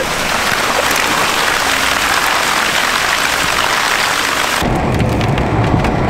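A truck driving on a rain-soaked dirt trail, heard through an open window: a loud, steady hiss of wind, rain and wet tyres. About four and a half seconds in it cuts abruptly to the low rumble of engine and road inside the cab.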